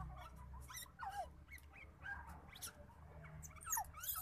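Newborn otter pups squeaking while nursing: short, high-pitched calls that slide down in pitch, coming irregularly several times, with a cluster near the end.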